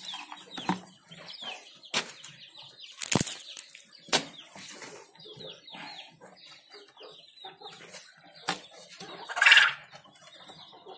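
Hungry quail calling over and over with short, falling chirps, which the keeper takes for scolding him for feeding them late. A few sharp knocks come through, and about nine and a half seconds in there is a short, loud rustling burst.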